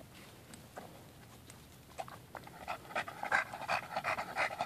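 A bulldog panting hard, in fast, regular breaths. The panting is faint at first and grows louder and quicker a little past halfway.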